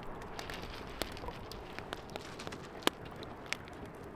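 Wood campfire burning, crackling with irregular sharp pops over a steady low noise; the loudest pop comes about three seconds in.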